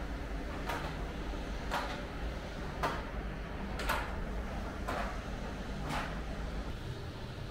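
Footsteps on a hard floor at walking pace, about one a second, over a steady low rumble.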